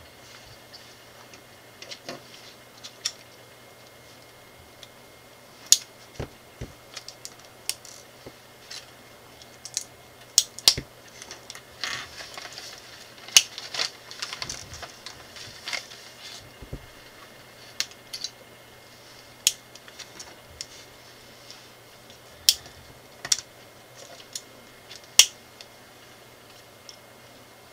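Small plastic LEGO pieces clicking and clattering as they are pressed together and set down on a wooden table: irregular sharp clicks, with a stretch of paper instruction sheets rustling about halfway through.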